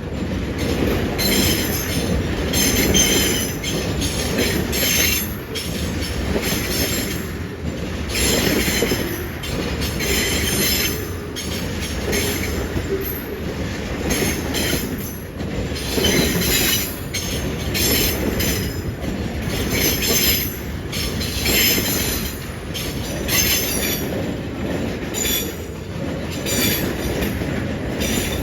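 Loaded freight tank cars rolling past on the rails, a steady rumble of wheels on track with short high-pitched wheel squeals every second or two.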